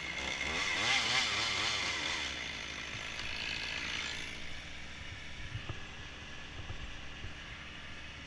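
Stihl chainsaw engine running at idle, its pitch wavering up and down over the first couple of seconds, then settling quieter with a few light knocks.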